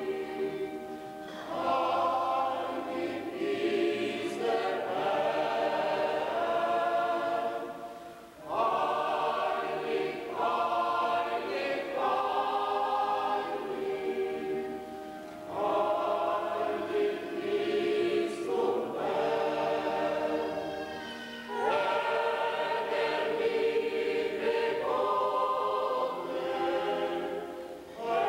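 Mixed choir of men's and women's voices singing a hymn under a conductor, in long phrases with a brief breath between them about every six to seven seconds.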